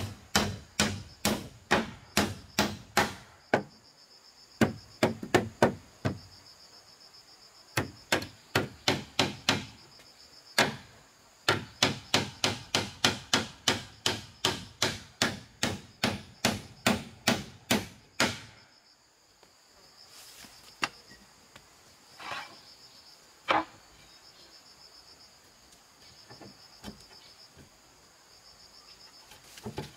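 Repeated blows of a tool on wood, about three a second in runs with short pauses; they stop about two-thirds of the way through, and a few single blows follow. Insects buzz steadily at a high pitch behind them.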